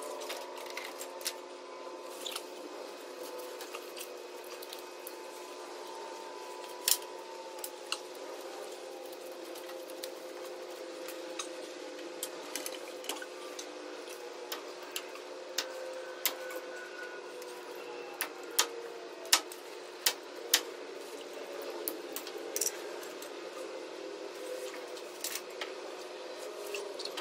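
Scattered sharp clicks and snaps of plastic connectors and clips as truck light wiring is worked loose from underneath, over a steady background hum.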